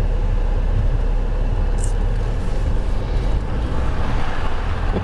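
Steady low rumble of a vehicle driving slowly, heard from inside the cabin: engine and tyre noise, with a little more hiss near the end.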